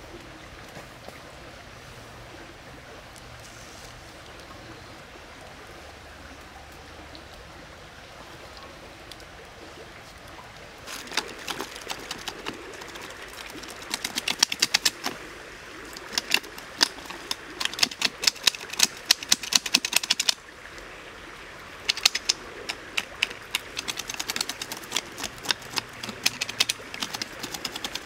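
A steady, even background hiss for about the first ten seconds, then rapid runs of sharp scratching clicks as a scalded crocodile's scaly hide is scraped and handled against a rack of wooden sticks.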